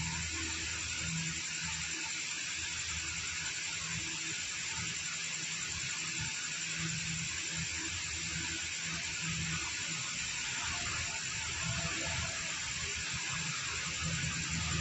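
Steady background hiss with a low hum that comes and goes.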